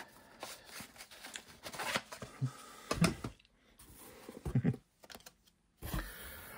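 Betamax tapes and cardboard being handled inside a box: scattered light clicks, knocks and rustling, with a couple of brief pauses.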